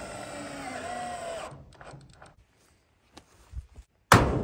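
Power drill driving a screw into steel siding, its motor whining for about a second and a half with the pitch shifting as it runs. A few faint clicks follow, then a sudden loud thump near the end.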